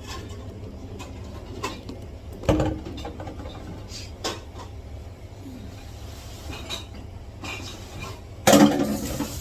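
Kitchen clatter while vegetables are prepared: scattered knocks and clinks of utensils and dishes, with a heavy thud about two and a half seconds in and a louder clatter near the end.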